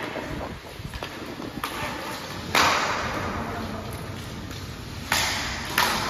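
Sharp knocks from hard hits, the loudest about two and a half seconds in and two more close together near the end, each trailing off in a short hiss of echo.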